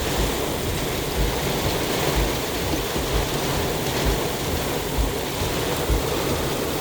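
Heavy wind-driven rain pelting a car in storm gusts, a steady hiss with irregular low thumps as the wind buffets the car.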